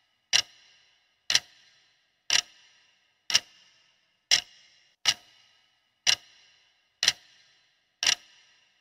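Clock-tick sound effect marking a quiz countdown timer: nine sharp ticks, about one a second, each with a brief ringing tail.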